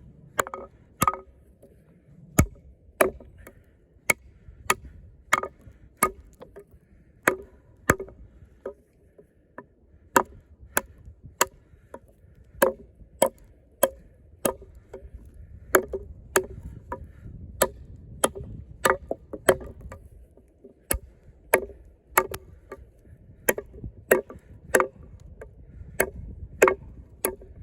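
Lengren Dragon combat knife, a 6 mm thick Sleipner steel blade, chopping into pressure-treated wood: a run of sharp thwacks, roughly one to two a second and slightly irregular. Wind rumbles on the microphone underneath.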